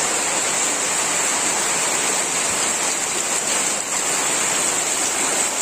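Heavy rain pouring down steadily onto corrugated metal roofs, a dense even hiss.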